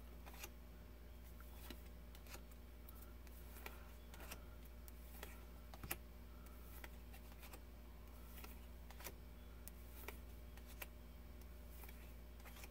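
Faint clicks and soft snaps of stiff playing-card-sized cards being moved through a hand-held deck one at a time, over a steady low hum. The sharpest click comes about six seconds in.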